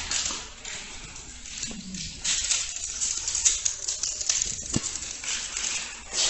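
Plastic snack-bag and bar wrappers crinkling and rustling as they are handled and torn open, an irregular crackling throughout.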